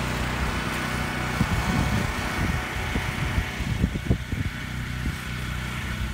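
Small gasoline engine running steadily at a constant speed, the generator-driven pump set used to fill the siphon pipes with water, with irregular gusts of wind buffeting the microphone.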